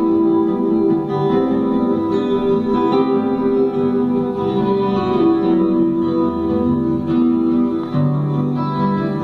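Recorded music, mostly plucked guitar-like notes, played through Avantgarde Zero 1 horn loudspeakers in a listening room. A lower sustained bass note comes in about eight seconds in.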